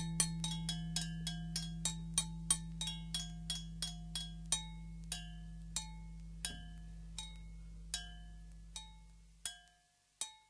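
Instrumental ending of a song: a ringing percussion strike repeats and slows steadily from about six strikes a second to about one, like a train slowing to a halt, over a held low note. The note fades out near the end, and two last strikes follow.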